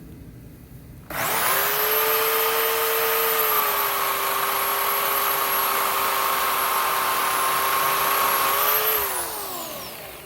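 Bauer 16-inch corded electric chainsaw starting about a second in and running steadily with a high motor whine as it cuts through a thick branch, its pitch dipping slightly under the load. Near the end it is released and the whine falls in pitch as the motor winds down.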